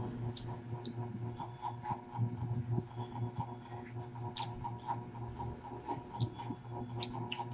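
Eating sounds: crispy fried chicken being chewed and pulled apart by hand, with scattered small crackles and clicks over a steady low hum.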